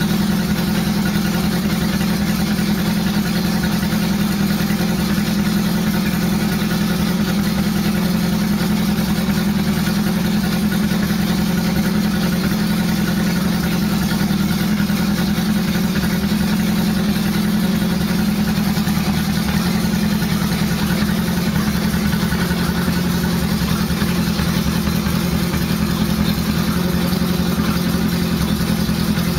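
1977 Honda Gold Wing GL1000's flat-four engine idling steadily through a homemade exhaust.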